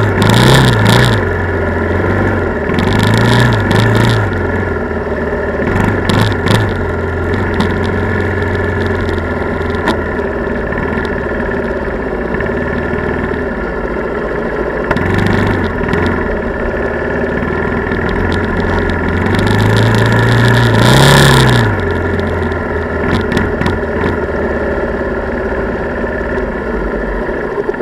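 ATV (quad) engine running close by, its note rising briefly as it is revved about four times, longest and loudest about three-quarters of the way through, with short hissy flurries over the steady engine drone.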